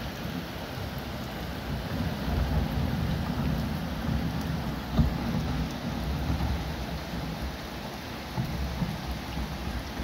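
Floodwater rushing along a street, a steady noisy rush with a heavy low rumble, with a brief thump about five seconds in.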